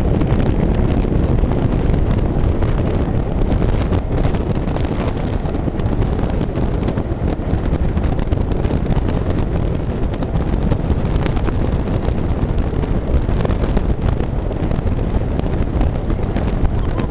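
Loud, steady wind buffeting the microphone at an open carriage window, over the running noise of a steam-hauled passenger train on the rails.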